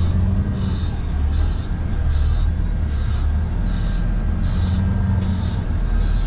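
Semi truck's diesel engine running at low speed, heard from the cab, with a short high beep repeating about every three-quarters of a second: the reverse alarm while the trailer is backed into its slot.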